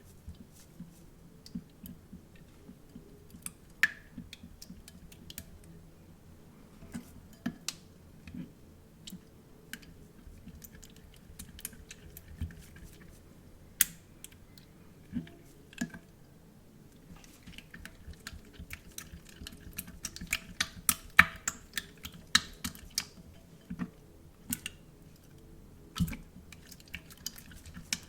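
Irregular sticky clicks and crackles of slime and cut-open stress-ball filling being squeezed and mixed by hand, coming thicker about two-thirds of the way through.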